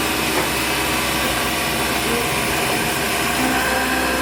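1992 Haas VF-1 CNC vertical machining center running: a steady machine whir with several steady tones, and one more steady tone joining about three and a half seconds in.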